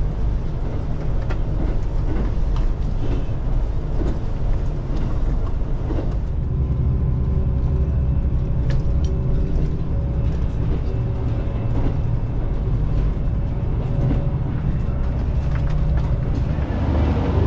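Steady rumble inside a moving Yufuin no Mori diesel railcar: engine drone and running noise on the rails, with a few light clicks.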